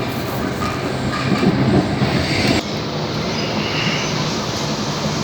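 Electric suburban train running on the line, heard from inside the carriage: a steady rumble of wheels on rail, with an abrupt change in the sound about two and a half seconds in.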